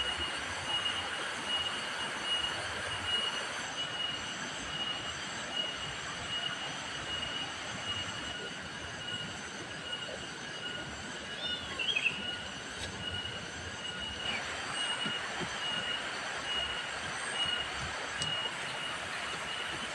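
Steady high-pitched insect drone, pulsing a couple of times a second, with a brief bird call about twelve seconds in.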